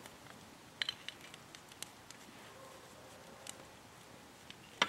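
Wood fire crackling faintly in a fire pit, with a handful of scattered sharp pops and clicks.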